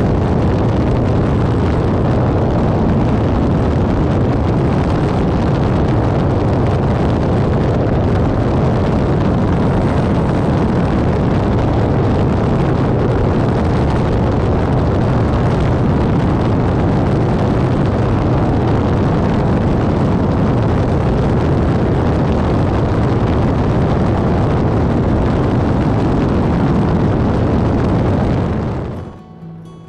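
Airbus H125 (Esquilo B3e) helicopter running: a loud, steady rotor and turbine noise that drops away just before the end.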